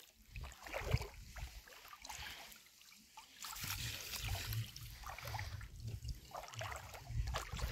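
Water splashing and trickling as a small fish is scooped into a landing net and lifted, water running out through the mesh.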